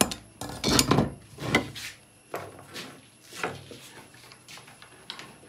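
A string of clinks and knocks as welding gear is handled: gloved hands at the stick welder, then the electrode holder and its cable being picked up. The knocks are louder in the first two seconds and fainter after that.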